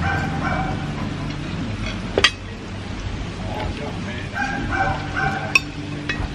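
Cutlery clinking sharply against a plate three times during eating, over a low background murmur.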